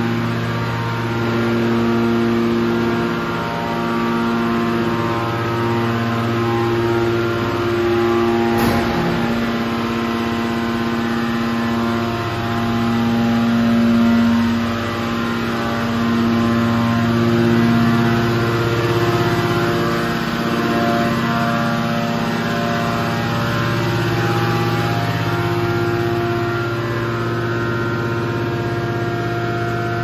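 Steady hum of a hydraulic metal baler line running: several sustained tones that swell and fade every few seconds, with one sharp click about nine seconds in.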